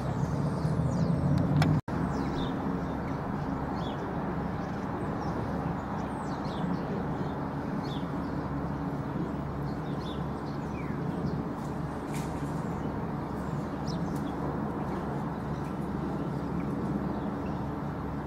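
Outdoor ambience: a steady rumble of distant traffic, with occasional short bird chirps. The sound cuts out for an instant just under two seconds in.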